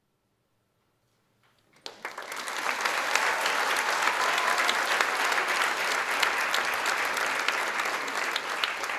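Near silence for about two seconds, then a theatre audience breaks into applause that holds steady: many hands clapping at once.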